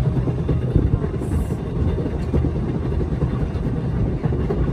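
Schynige Platte rack railway train running: a steady low rumble with constant irregular rattling from the carriage.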